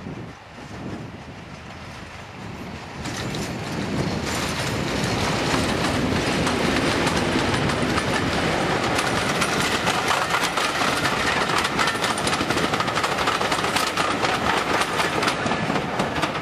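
Class 31 diesel-hauled passenger train, English Electric 12SVT engine, passing close by. It grows louder about three to five seconds in, then the coaches roll past with a rapid clatter of wheels over the track.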